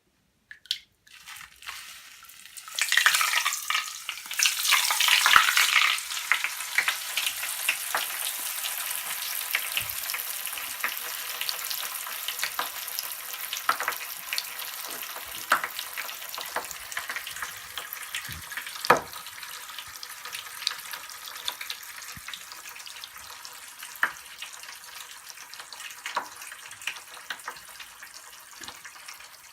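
Mr. Bubble Magic Bath Crackles crackling in bath water: a loud burst of fizzing about three seconds in, then a steady crackle with scattered sharp pops that slowly fades.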